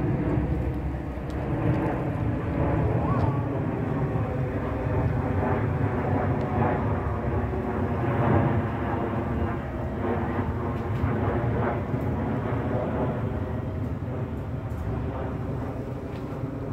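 Ice cream truck driving slowly away, its engine running steadily with a low rumble, and a faint chiming tune playing over it.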